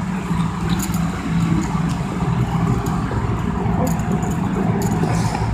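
Car engine running at idle: a steady low hum, with a few faint clicks over it.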